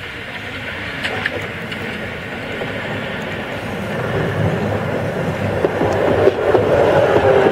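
Electric tram approaching on its rails and passing close by, the wheel-on-rail rumble growing steadily louder as it nears, with a few sharp clicks from the wheels on the track.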